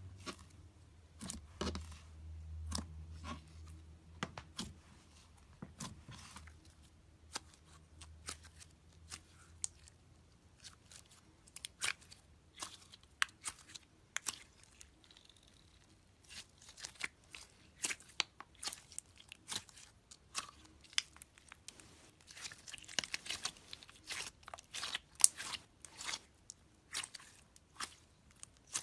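Slime being poked, squeezed and stretched by hand, giving off scattered sharp clicks and crackling pops, thickest in a rapid run about two-thirds of the way through.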